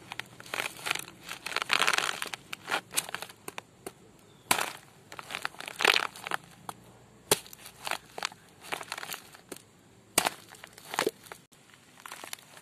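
A large kitchen knife cutting through a ripe jackfruit's fibrous flesh and core, making irregular crunching strokes as the blade is worked through the fruit.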